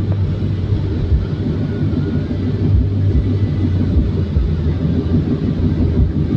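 A car driving at steady speed: a continuous low rumble of engine and tyres.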